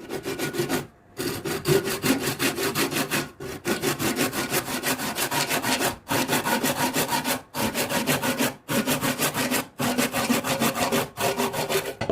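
Wood being worked by hand with fast, even back-and-forth strokes, most like a hand saw cutting through a branch. The strokes come in runs of a second or two, with short pauses between them.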